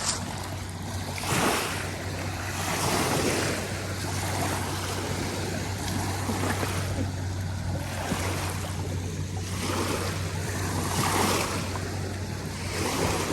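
Small waves washing against a lakeshore, swelling and falling back about every two seconds, over a steady low hum.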